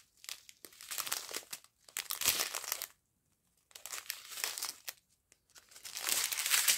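Small clear plastic bags of round resin diamond-painting drills crinkling as they are handled and shuffled, in irregular bursts with two brief pauses in the middle.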